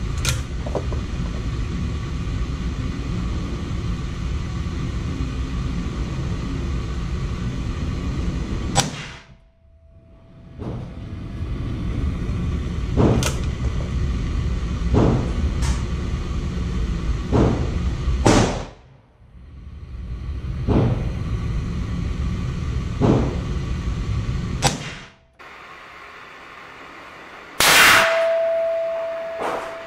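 A string of .45 ACP shots from a Ruger Blackhawk single-action revolver, fired one at a time a second or several seconds apart, over a steady low rumble. The loudest shot comes near the end and leaves a short ringing tone.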